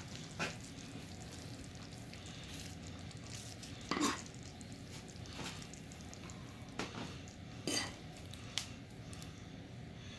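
A metal serving spoon scooping thick, creamy lobster sauce from a skillet and spooning it onto a plate, with a few sharp scrapes and clinks of the spoon against the pan, the loudest about four seconds in.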